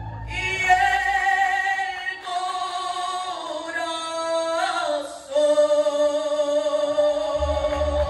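Middle-school mariachi ensemble playing: violins and trumpets hold long melody notes over little or no bass, with a brief break about five seconds in. The low bass and rhythm come back in near the end.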